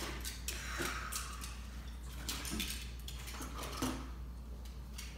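Toys clattering and knocking together in a plastic bin as a child rummages through it, in irregular clicks and rattles.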